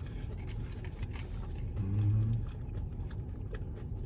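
Faint chewing and food-handling clicks over a steady low rumble inside a car, with one short, low closed-mouth "mm" hum about two seconds in.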